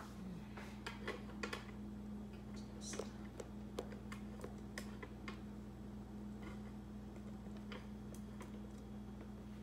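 Light, irregular clicks and taps, a few per second at most, over a steady low electrical hum.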